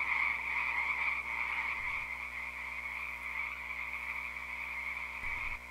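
A steady animal chorus: an even, continuous high-pitched din of many calls blended together, which drops away near the end.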